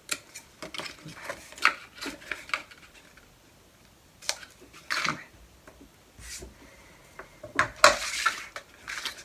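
Scissors snipping the side tabs off folded cardstock in a series of short, sharp cuts, followed near the end by a louder rustle of the card pieces being gathered and shuffled together.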